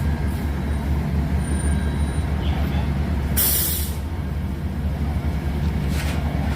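Steady low rumble of a running vehicle engine, with one short hiss about three and a half seconds in.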